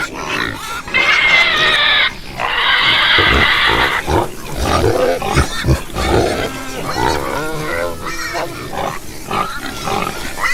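Domestic pigs: two long, high-pitched squeals in the first four seconds, then a string of grunts and short squeals.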